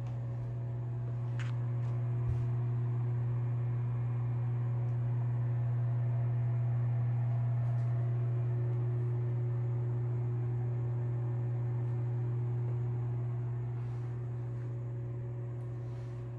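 A ventilation fan's steady low hum, swelling a little in the middle and easing near the end, with a few faint taps.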